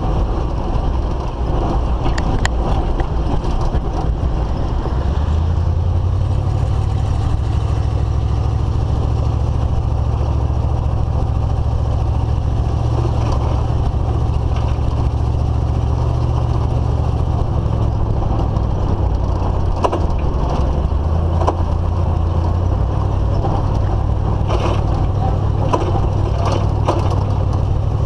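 Low, steady rumble of a GMC Suburban driving on a dirt road while towing a loaded trailer, heard through a camera stuck to its back window; the low hum shifts in pitch a few times, and short rattles and clicks come and go, most of them near the end.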